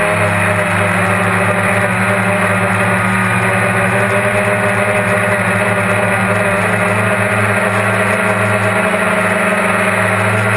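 GAUI QuadX quadcopter's electric motors and propellers, heard from the onboard camera, running with a steady loud buzzing hum whose pitch wavers slightly as the throttle changes.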